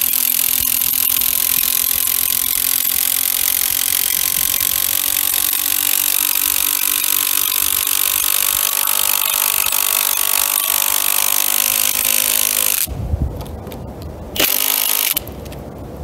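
Kobalt 24-volt cordless drill driving a long timber screw into pine, its motor running steadily under load for about thirteen seconds and then stopping. A short second burst follows about a second and a half before the end.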